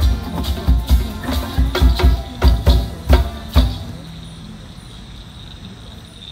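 Drum-and-percussion music for a stage play, heavy beats that grow louder and stop suddenly about three and a half seconds in. Faint cricket chirping is left behind.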